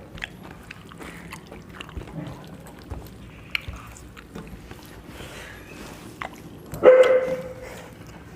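A dog barks once, a single loud bark about seven seconds in, with faint small clicks of eating and dishes before it.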